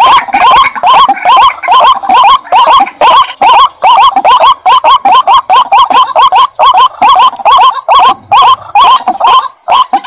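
White-breasted waterhen (ruak-ruak) calling: a loud, unbroken run of harsh, hooked notes, about three a second. It is the swamp recording used as a lure call to draw waterhens out when hunting.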